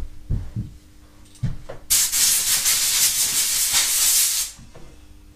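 Compressed-air blow gun from an air compressor blasting for about two and a half seconds, blowing carbon dust out of a mobility scooter motor's armature and commutator. A few dull thumps come before it.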